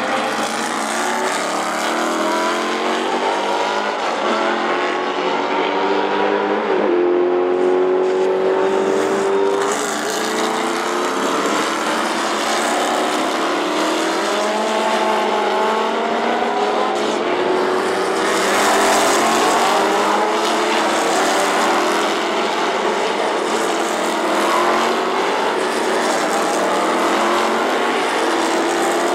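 Historic sports racing cars, Lola T70 Mk3B Chevrolet V8s among them, accelerating at full throttle one after another out of a hairpin. Their engine notes climb through the gears and overlap. The sound is very loud and continuous.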